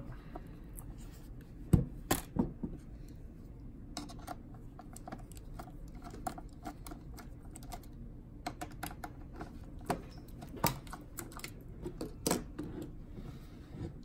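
Small metal clicks and ticks of a pocket-knife screwdriver blade turning out the hard-drive screws on the underside of a Dell Precision M4600 laptop, with one sharper knock about two seconds in and a few more louder ticks later on.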